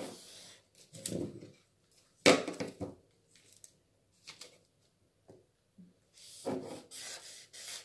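A long wooden ruler being handled on a sheet of pattern paper: shifted and set down in short bumps, with one sharp knock a little over two seconds in. Near the end comes a longer stretch of scraping and paper rustle as a marker is drawn along the ruler.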